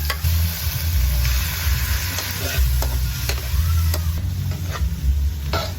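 Onion and garlic sizzling in hot oil in a pot, stirred with a utensil that clicks against the pot now and then, over a steady low rumble.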